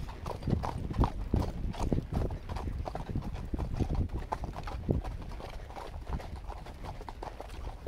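Horse's hooves clopping on a packed dirt trail, a few uneven thuds a second.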